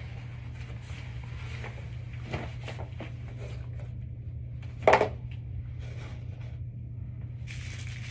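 Scattered small handling clicks and knocks, with one louder sharp click about five seconds in, over a steady low hum.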